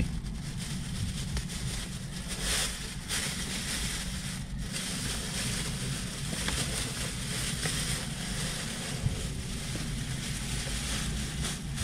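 Plastic takeout bag rustling and crinkling as its knot is worked loose and the container pulled out. Under it runs a steady low rumble and rushing hiss inside a parked car.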